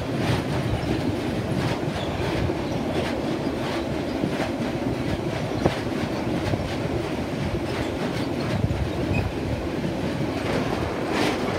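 Iron ore freight train of bogie hopper wagons rolling past close by: a steady heavy rumble of steel wheels on rail with a regular clickety-clack as the wheelsets cross rail joints.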